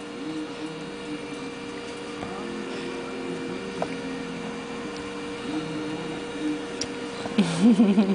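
A baby being spoon-fed, with small mouth and spoon clicks and faint murmuring voice sounds over a steady hum. A short, louder wavering vocal sound comes near the end.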